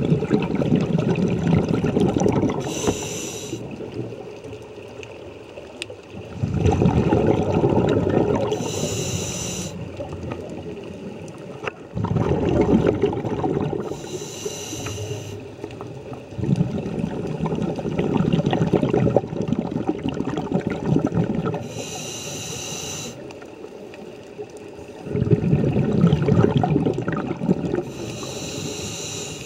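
A scuba diver breathing through a regulator underwater: a short high hiss of each inhale from the demand valve, then a long, low bubbling rush as the exhaled air is let out. About five breaths, a few seconds apart.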